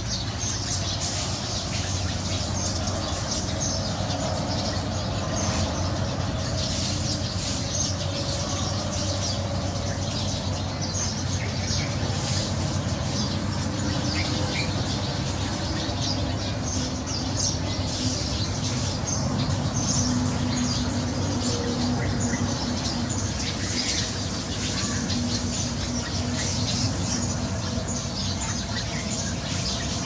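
A dense, continuous chorus of many Eurasian tree sparrows chirping and chattering together at their evening roost.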